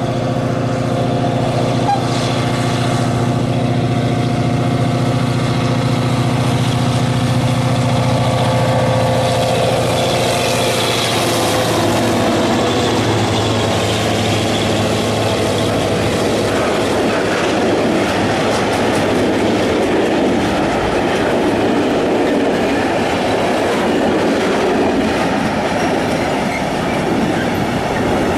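HŽ series 2062 diesel locomotive running steadily as it approaches and passes. About twelve seconds in its engine note gives way to the steady rolling noise of a long string of hopper wagons, wheels running over the rails.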